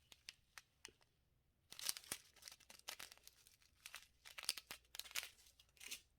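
Small plastic bags of diamond-painting drills crinkling as they are handled, in scattered faint crackles and clicks, with a short pause about a second in.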